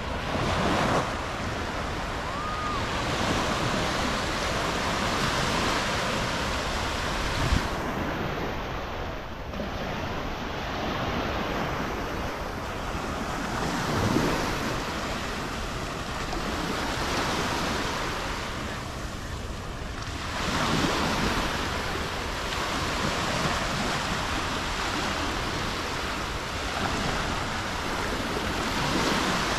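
Sea waves washing onto a beach: a steady rushing noise that swells about every six to seven seconds.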